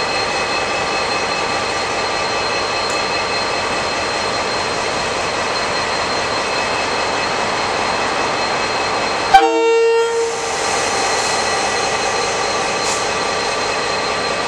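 KiwiRail DFB-class diesel-electric locomotive standing with its engine running at a steady hum, then one short blast on its horn about nine seconds in, lasting about a second.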